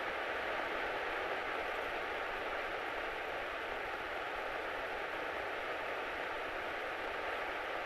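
Steady cabin drone of a Grumman single-engine light airplane taxiing at low power, heard through the cockpit headset intercom as an even hiss-like rush with a faint steady whine.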